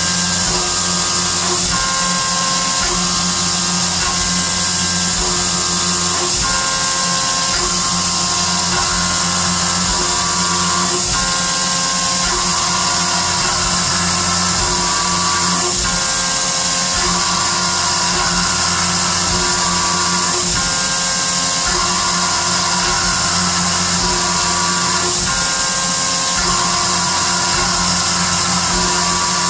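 Background music with a melody over a CNC mill's half-inch carbide end mill cutting cold rolled 1018 steel at 6,000 rpm. The cut is a steady, unbroken machining noise: the rough pass of a pocket, about 35 thousandths deep per pass at 120 inches a minute.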